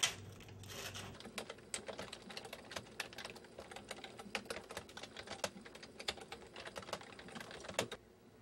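Typing on a computer keyboard: quick, irregular keystrokes for several seconds, ending in a sharper click.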